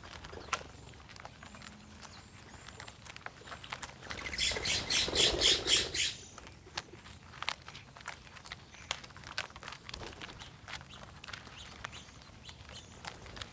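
A bird's harsh squawking call, a rapid run of about a dozen rasping notes lasting about two seconds, starting about four seconds in. Scattered light clicks and ticks run through the rest.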